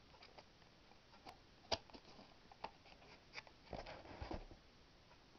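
Faint handling of a small cardboard box: scattered light taps and clicks, then a short scraping rustle about four seconds in as the inner card insert is slid out of the box.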